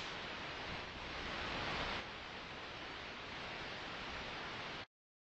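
Steady hiss of background recording noise, which cuts off abruptly to dead silence near the end.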